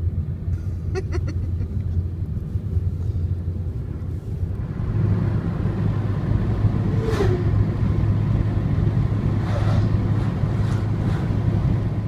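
Steady low rumble of road and engine noise inside a moving car's cabin, growing a little louder about five seconds in, with a few faint brief clicks or rustles over it.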